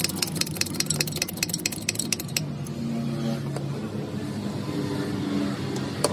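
A motor vehicle engine running, its pitch rising and falling, with a rapid run of sharp clicks, about eight to ten a second, for the first two seconds or so.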